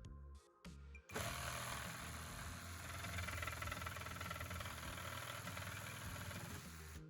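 BLACK+DECKER EVO183C1 cordless multi-tool running steadily with an attachment fitted for about six seconds, starting suddenly about a second in and cutting off sharply near the end. Background music plays before it starts.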